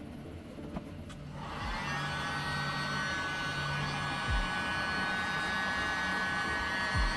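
Handheld heat gun switched on about a second in, its fan and air rising to a steady blowing hiss with a thin high whine, aimed at melted PLA on a 3D printer's hot end. There are two soft low thumps, one in the middle and one near the end.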